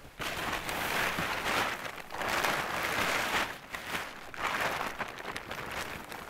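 A plastic tarp crinkling and rustling as it is pulled out and shaken open. The noise comes in several bursts of a second or two each.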